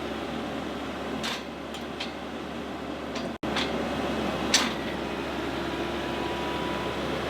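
Tractor engine running steadily, with a few sharp knocks in the middle and an instant's dropout a little before the middle.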